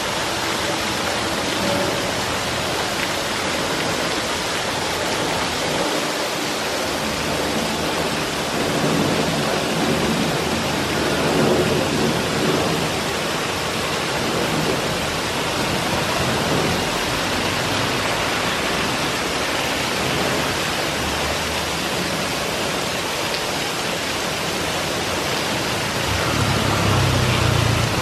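Heavy rain falling steadily on roofs and street pavement: a dense, even hiss. Near the end, a low engine sound grows louder as a motorcycle rides by on the wet road.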